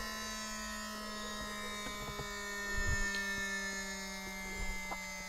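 Piper Dakota cockpit electrics winding down just after the battery master is switched off: a steady hum and several faint whining tones that slowly fall in pitch, with a soft thump about three seconds in.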